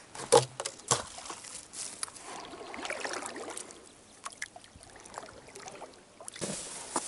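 Inflatable boat being paddled through shallow water: water trickling and sloshing off the paddle, with a few sharp knocks in the first second. A brighter hiss comes in near the end.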